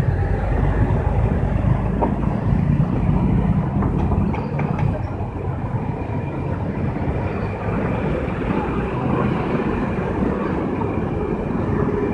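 Street traffic: vehicle engines running as cars and a bus pass below, a steady low rumble.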